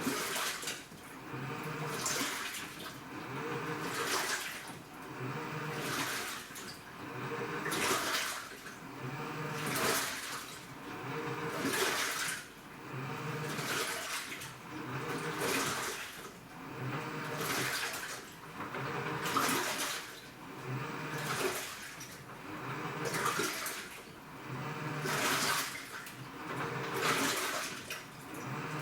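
AQUA washing machine with a DDM inverter direct-drive motor agitating the wash: water sloshes in regular surges about every two seconds, each with a short low motor hum as the drive turns one way and then reverses.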